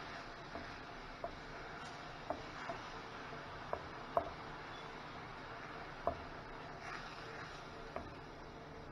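Wooden spoon stirring onion and garlic sautéing in oil in a stainless steel frying pan: a faint steady sizzle with irregular light knocks of the spoon against the pan.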